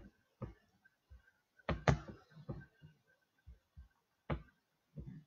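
A handful of short knocks and thuds at close range, the loudest pair about two seconds in.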